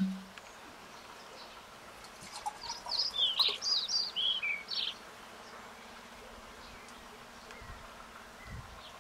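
A songbird sings one quick phrase of short, sliding chirping notes, a couple of seconds in and lasting about two and a half seconds. A brief low hum sounds at the very start.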